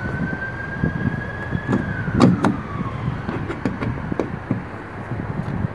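Clicks and handling noise of a T20 Torx bit and fingers working loose trim-panel bolts, with two sharp clicks a little over two seconds in. A high steady whine runs behind it and falls in pitch about two seconds in.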